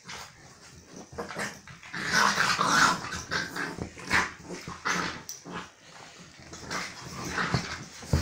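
A Staffordshire bull terrier and a boxer puppy play-fighting, growling at each other in rough, irregular bouts with scuffling on a sofa cushion.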